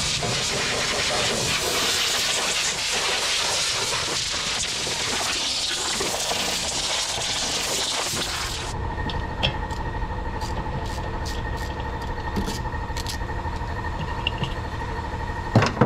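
A motor-driven machine runs steadily with a loud rushing hiss of air or spray. The hiss cuts off suddenly about nine seconds in, leaving the machine's steady hum and whine with scattered light clicks.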